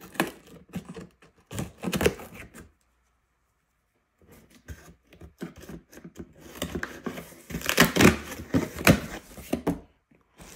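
Scissors scraping and snipping through packing tape on a cardboard shipping box. After a break of about two seconds, the cardboard flaps are pulled open with rustling and tearing, loudest near the end.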